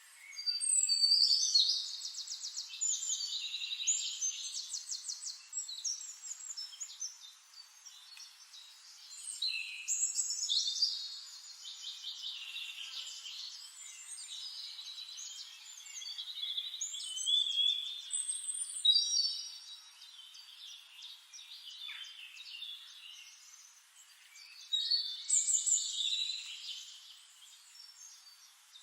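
Songbird song: chirps and rapid high trills in phrases a few seconds long, coming back every seven or eight seconds.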